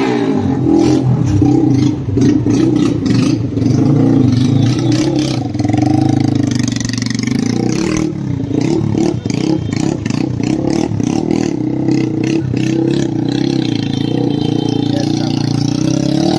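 TVS Apache RTR 160's single-cylinder engine running loud and rough with its exhaust bend pipe cut open, firing straight out without a silencer. The revs climb about six seconds in and drop back about two seconds later.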